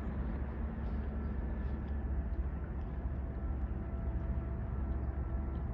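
Low, steady rumble of the bulk freighter Algoma Discovery's diesel engines as she passes close by, with faint steady hum tones over it.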